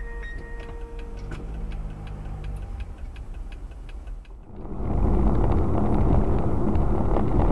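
Dashcam audio from inside a moving car: steady rapid ticking, about three to four clicks a second, over moderate engine and road hum. After a cut about four and a half seconds in, a much louder, dense rumble of tyres and engine takes over.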